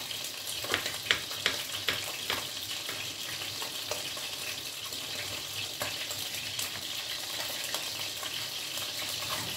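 Chicken frying in hot oil in a pan under a mesh splatter screen: a steady sizzle with sharp spitting pops, several in the first couple of seconds and a few scattered later.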